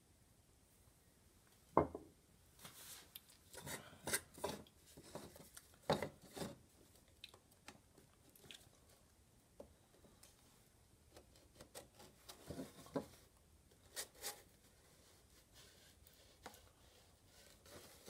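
Hand-handling sounds of a vintage Garantie coffee grinder's domed metal bowl on its wooden top plate: a sharp knock about two seconds in, then irregular scrapes, clinks and taps.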